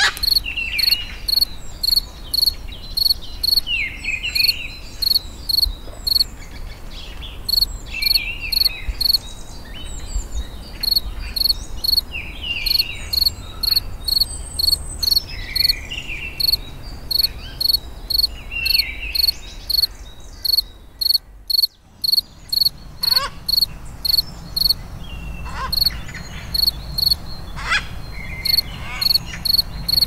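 Rainforest crickets chirping in a steady high-pitched rhythm, about two to three pulses a second, with short falling bird calls scattered over it. The chirping breaks off for about a second roughly two-thirds of the way through, then picks up again.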